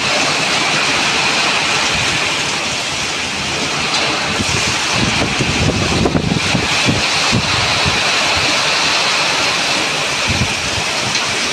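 Heavy monsoon rain pouring steadily onto a flooded concrete yard and foliage, a loud even hiss. Wind buffets the microphone with low rumbles around the middle.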